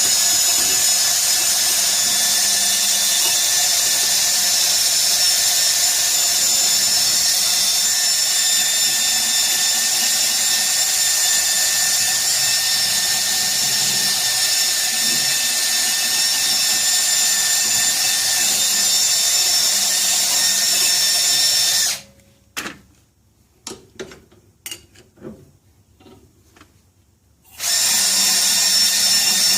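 Power tool spinning a wire brush against rusty steel pieces, scouring the rust off before painting: a steady high whine with a scratching hiss. It cuts off late on for about five seconds, leaving only a few light clicks and knocks, then starts again.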